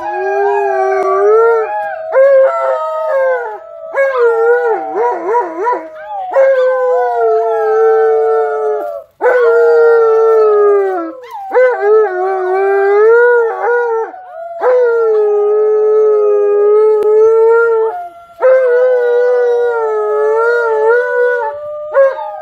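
An Alaskan Malamute howling along with several children who are imitating howls. Long drawn-out howls at different pitches overlap, each breaking off after a few seconds and starting again, about seven times in a row.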